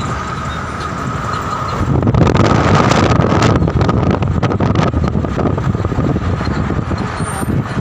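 Cabin noise of a vehicle being driven: engine and road noise, rising louder about two seconds in, with some wind buffeting the microphone.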